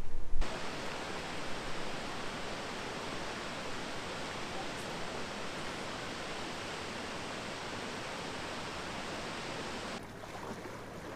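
Steady rush of falling water from a waterfall. It drops to a quieter sound with a faint low hum about a second before the end.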